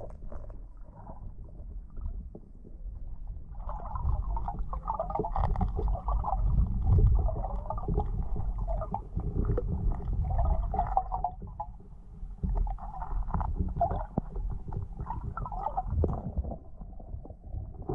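Muffled underwater sound picked up by a GoPro camera in its waterproof housing: a low rumble of moving water throughout. From about four seconds in until near the end, choppy gurgling sits on top of it.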